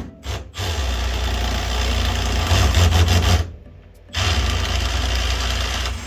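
Power tool running hard in two long bursts, about three seconds and then about two seconds, with a short stop between, as it works on a rusted body bolt.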